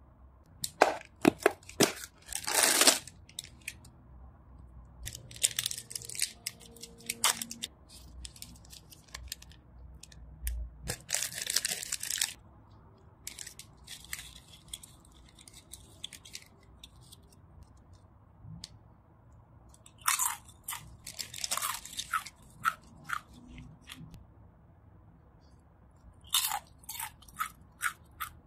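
Snack packaging being handled: a cardboard snack box opened and a printed inner snack bag crinkled, in separate bursts of sharp crackles and crunches with quiet gaps between.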